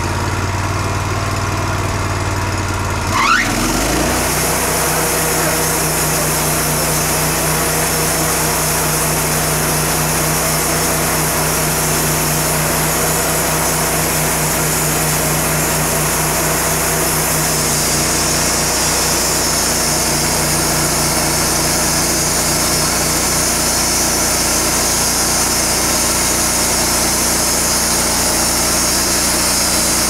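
Wood-Mizer hydraulic band sawmill's engine revving up about three seconds in, then running steadily under load as the band saw cuts along a large oak log. The high-pitched cutting hiss grows louder about halfway through.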